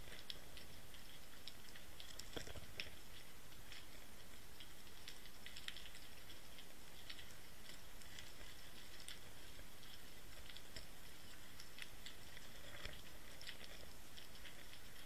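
Underwater sound picked up by a Water Wolf inline camera on a pebbly seabed: a steady hiss with scattered small clicks and crackles, and one heavier low knock about two and a half seconds in.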